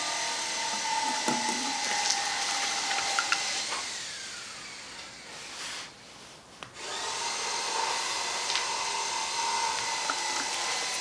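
A steady background hiss with a faint whine, and a few light clicks and scrapes of plastic as a small plastic bottle is pulled out of a plastic tube set in gravel. The background drops away briefly a little past halfway.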